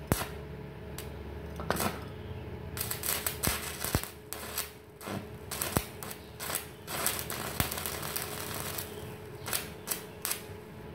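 Stick (SMAW) arc welding with a 4 mm electrode on an ES1200 120-amp inverter welder: the arc strikes with sharp cracks, then crackles and spits irregularly, densest in the middle, with a few separate pops near the end.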